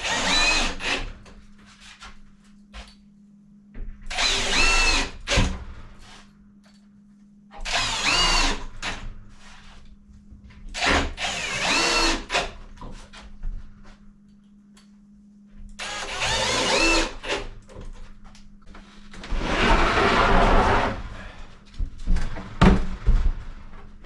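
Power drill driving screws during cabinet assembly, run in about six short bursts. The motor whine rises and falls in pitch on each burst.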